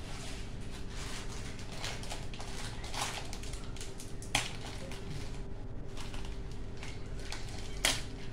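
Kitchen prep handling noises: scattered rustling and light clatter at the counter, with two sharp clicks, one about four seconds in and one near the end, over a steady faint hum.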